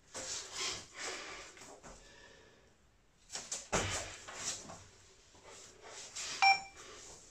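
Heavy breathing and the rustle of a body moving on the floor during a bodyweight exercise, in a series of short noisy bursts. About six and a half seconds in, a single short electronic beep from an interval timer sounds.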